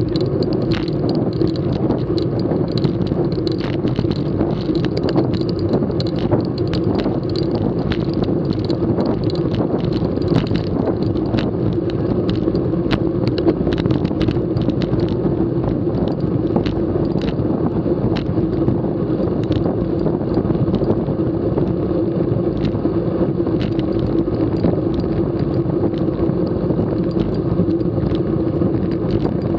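Wind rushing over a bike-mounted action camera and road-bike tyres rolling on a concrete road at racing speed, a steady hum with scattered clicks and knocks throughout.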